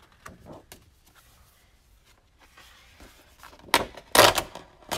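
A large sheet of patterned scrapbook paper being turned over and laid down by hand: faint rustling at first, then a loud rustle and slap of paper about four seconds in.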